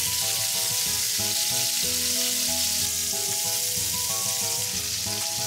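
Water and mentsuyu sizzling and bubbling in a hot frying pan around cubes of deep-fried tofu and sliced shiitake, a steady hiss, over soft background music.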